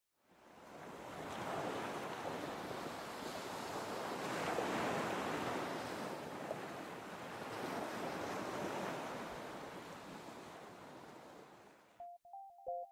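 Ocean surf: a steady wash of waves that fades in, swells in the middle and fades away, cutting off near the end, where a few synthesizer notes of music begin.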